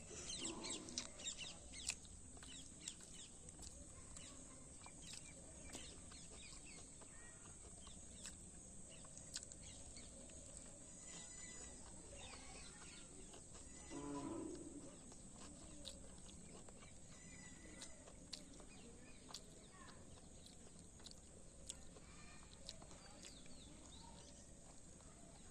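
Quiet background with scattered small clicks and faint bird chirps; about halfway through comes one short, low animal call.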